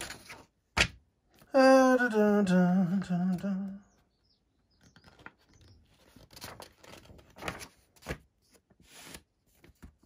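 A man's voice hums a drawn-out, wavering note for about two seconds. After that come faint rustles as pages of a paper instruction manual are turned.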